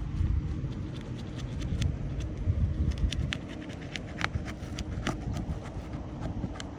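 A roofing pry tool working under asphalt shingle tabs to break their seal, with scraping and a run of sharp clicks in the second half, over a low steady rumble.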